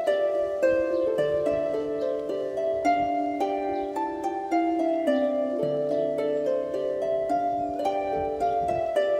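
Background music: a plucked-string melody with harp-like arpeggiated notes over a lower sustained line, in a steady gentle rhythm.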